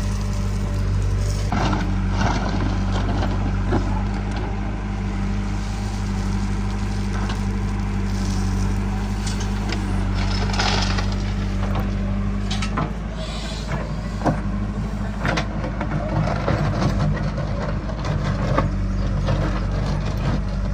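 A heavy diesel engine running steadily, with scattered sharp knocks and clanks. The engine note shifts from about two-thirds of the way through.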